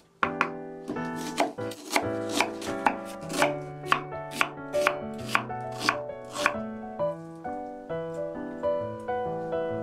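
Chef's knife chopping an onion on a wooden cutting board: crisp, even strokes at about two to three a second, growing softer and sparser after about six seconds, over background music.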